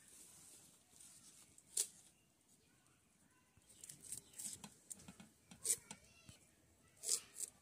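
Crisp snaps and cuts of fresh vegetables being cut by hand with a small knife: a handful of sharp clicks, with a flurry of softer ones in the middle.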